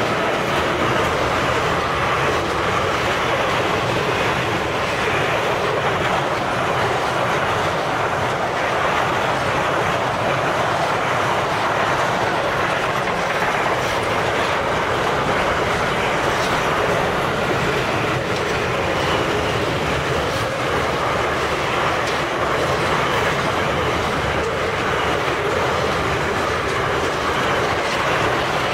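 Container wagons of a long intermodal freight train rolling past at speed: a steady din of steel wheels on rail, with faint clicks over the rail joints.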